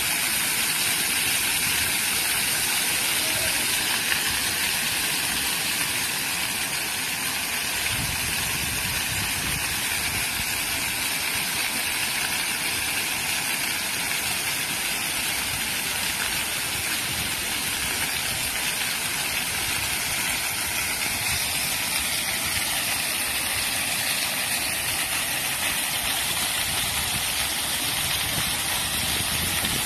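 Floor fountain: many small vertical water jets spraying up from nozzles in a stone-tiled floor and splashing back down, a steady hiss. A low rumble comes and goes from about eight seconds in.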